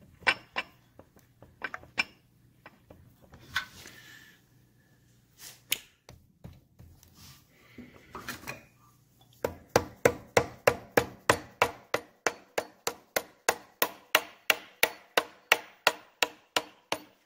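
A steady run of sharp hammer taps, about four a second, on a tube held against the engine sprocket of a Triumph 650 twin, driving the sprocket further onto the crankshaft over its key. Before the taps start, a few scattered metal clicks.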